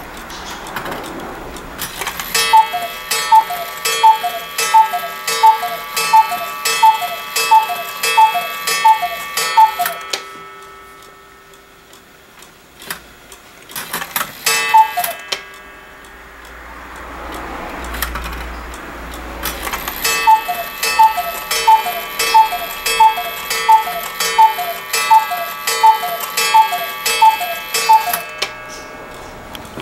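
Hubert Herr eight-day cuckoo clock sounding its two-tone cuckoo call, a high note then a lower one, with its mechanism clicking between calls. It calls about eleven times, once more about halfway through, then about twelve times near the end, as the minute hand is turned forward by hand through the hours.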